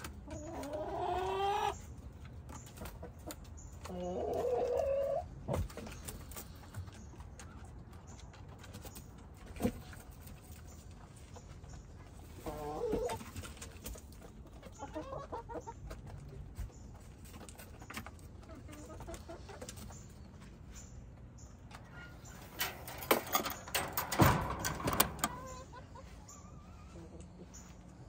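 Backyard hens calling, with a couple of longer rising calls near the start and shorter clucks later. Near the end a cluster of knocks and scrapes is the loudest sound.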